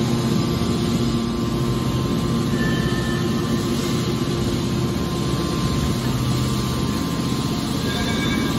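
Hydraulic scrap metal baler running: its electric motor and hydraulic pump hum steadily under load while a hydraulic cylinder swings the lid down over the scrap.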